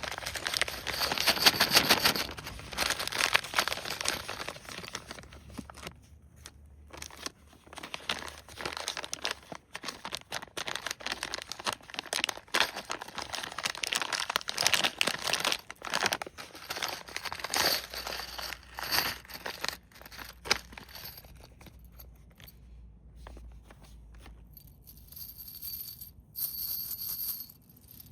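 Construction nails in a plastic bag: the bag crinkles as it is opened, then the nails are shaken, clinking and rattling metallically in rapid bursts.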